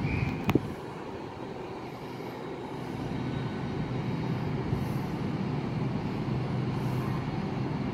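GWR Class 800 bi-mode train standing at the platform, its underfloor diesel engines running with a steady low hum that grows slightly louder after about three seconds. There is a single sharp click about half a second in.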